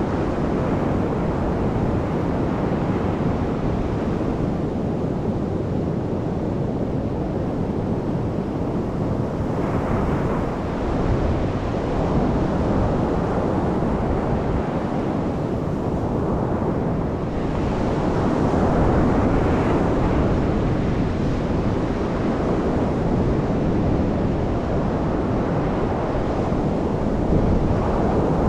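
Ocean surf breaking and washing on a black sand beach, swelling and easing every few seconds, with wind buffeting the microphone.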